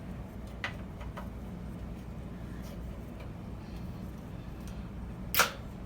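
Light clicks of a fuse being handled in a fuse panel, with one sharp click near the end, over a steady low hum.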